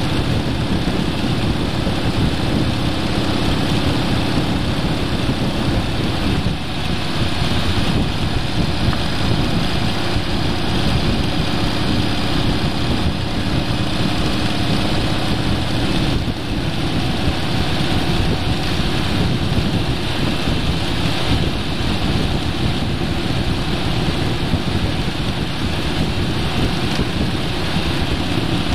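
A vehicle cruising along a concrete road: its engine and tyre noise run steadily, briefly dipping twice.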